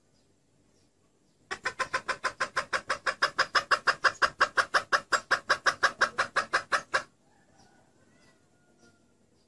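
Red junglefowl hen calling: a fast, even run of clucks, about six or seven a second, starting about a second and a half in and stopping abruptly some five seconds later. It is a hen's call of the kind used to lure junglefowl cocks.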